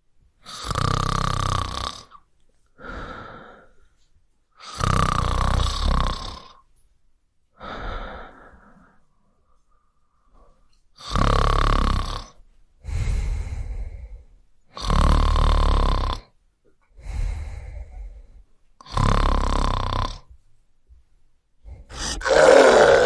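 Snoring: five loud, rasping snores about four seconds apart, each followed by a softer breath. Near the end a louder, rougher noise begins.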